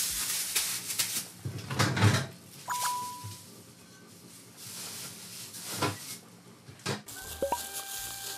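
Thumps and plastic rustling from noodle dough being worked in a plastic bag, then a refrigerator door being handled. There are several sharp knocks, the heaviest about two seconds in, and a short electronic beep about three seconds in.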